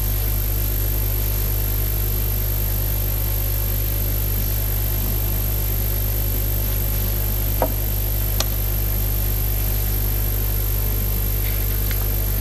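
Steady electrical hum and hiss from a microphone sound system, with two faint clicks a little past the middle.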